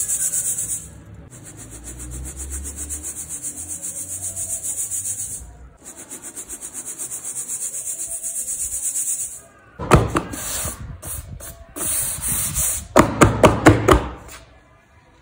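Dry cement being shaken through a fine metal mesh sieve: a fast, rhythmic, hissing rasp of powder and grit against the mesh. About ten seconds in, it gives way to several sharp knocks.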